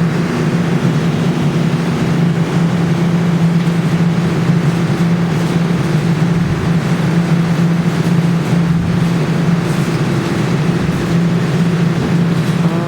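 Steady low machine hum with an even hiss over it, unchanging throughout.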